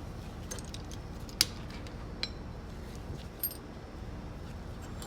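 Light metallic clinks and taps as the steel and friction plates of an automatic transmission's clutch pack are handled and set in place: a few separate sharp clicks, the sharpest about a second and a half in, over a steady low hum.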